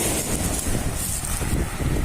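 Strong wind buffeting the microphone, a constant rumble and hiss that comes and goes in gusts, with the wash of sea surf beneath it.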